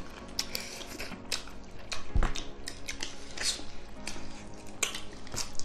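Eating by hand: wet chewing, lip smacking and biting into pieces of curried duck, with many short smacks and clicks at irregular times and a soft thump about two seconds in, over faint background music.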